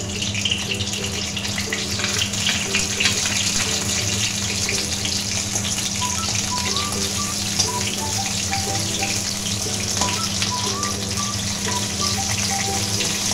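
Sea crab pieces sizzling as they shallow-fry in hot mustard oil in a steel karahi, a steady hiss with a few light clicks as pieces are added and moved. A soft melody plays underneath.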